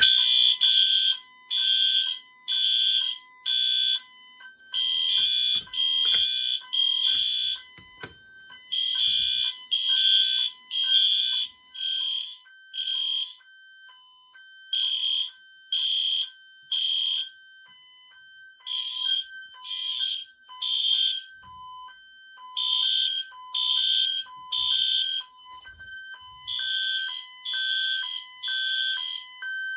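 Fire alarm horns (a mix of EST and System Sensor notification appliances) sounding in alarm, loud blasts in repeating groups of three in the temporal-three evacuation pattern, with several devices slightly out of step. Underneath runs a quicker, regular beeping tone.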